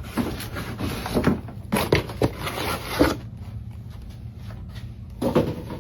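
Packaging rustling and crinkling as a new piston ring set and gasket kit are handled, in irregular bursts for about three seconds and again briefly near the end.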